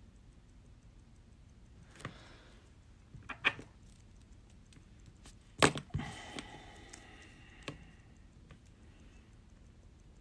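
Small metal watchmaker's tools clicking and clacking against a watch movement and the bench, a few separate sharp clicks, the loudest a metallic clack about halfway through that rings briefly.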